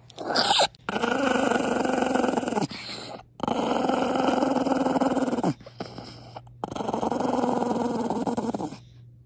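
Maltese dog growling: a short burst, then three long, steady growls of about two seconds each. It is a warning growl at being kissed.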